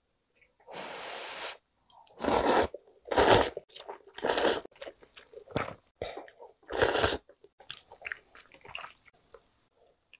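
A person slurping chewy jjolmyeon noodles out of spicy soup in four loud, short pulls. Each pull is a sharp, hissing suck. Smaller wet chewing clicks follow near the end.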